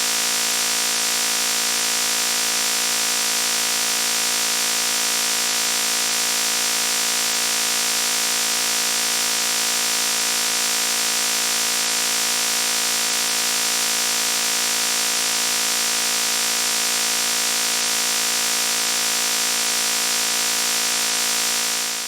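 Loud, steady electronic buzzing tone, harsh and rich in overtones, with no change in pitch. It cuts off abruptly at the very end.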